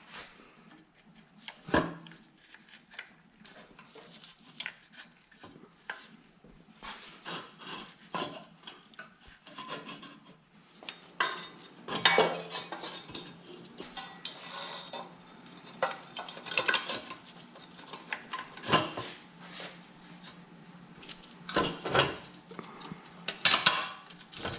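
Metal parts and hand tools clinking and clanking at irregular intervals, with a few louder knocks among lighter ticks, over a faint steady hum.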